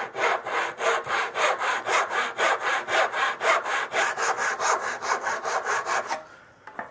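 Hand saw cutting across a wooden board in steady, even strokes, about four a second, the blade running in its kerf; the sawing stops about six seconds in.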